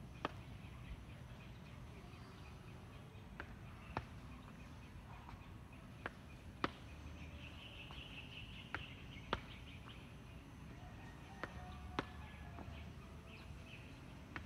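Footfalls of sneakers stepping up onto and down from a low concrete bench during step-ups: sharp taps in pairs about half a second apart, a pair every two to three seconds.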